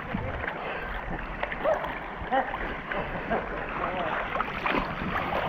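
Choppy sea water sloshing and splashing around a camera held at the water's surface, with irregular small splashes and gurgles.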